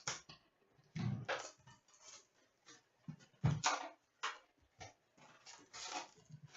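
Trading-card box being opened by hand: plastic wrap crinkling and tearing and cardboard rustling, in irregular bursts with a few dull knocks.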